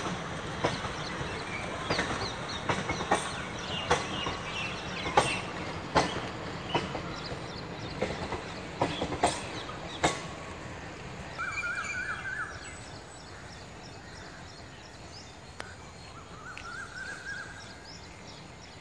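Passenger train coaches passing, steel wheels clattering over the rail joints in an uneven clickety-clack with a rumble underneath. After about ten seconds the train has gone by and its sound fades away. A bird calls twice in the fading quiet.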